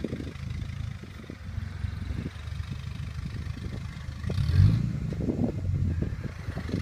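Off-road 4x4's engine running at low revs while rock crawling, with a brief rev about four and a half seconds in as the front wheel drops into a rock crack.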